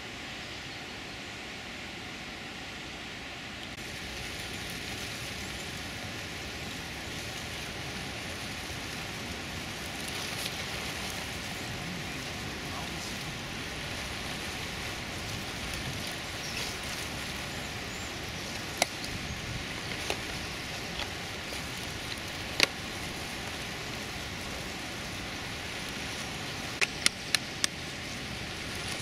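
Steady outdoor noise like wind or open-air ambience, stepping up slightly about four seconds in, with a few short sharp clicks scattered through the second half and bunched near the end.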